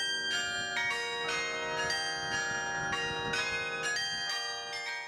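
Carillon bells of the Campanile playing a tune, about two strikes a second, each bell ringing on under the next.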